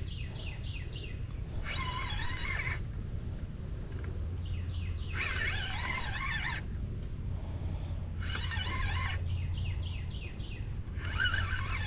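A songbird singing repeated phrases: warbled bursts about a second long alternating with quick runs of short falling chirps.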